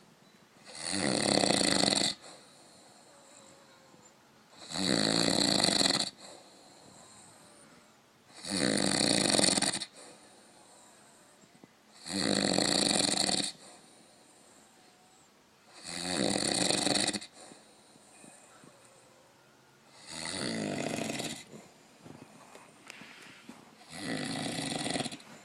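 Old man snoring in his sleep: seven snores at an even pace, one about every four seconds, each lasting over a second, with quiet breathing between; the last two snores are softer.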